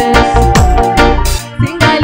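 Live gospel praise-and-worship music: a band with bass and drums keeping a steady beat under a sung melody. The music dips briefly about one and a half seconds in.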